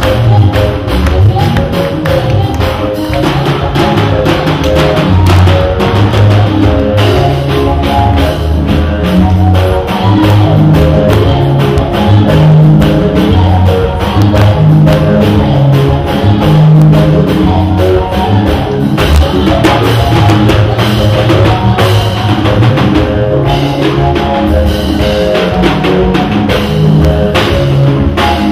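Loud band music: a drum kit keeping a steady beat under bass and guitar, playing without a break.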